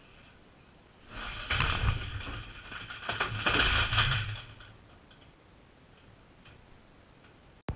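A small computer desk with its monitor and gear toppling over and crashing to the floor: a few seconds of clattering and knocking, loudest in two bursts. It stops abruptly, leaving only faint background.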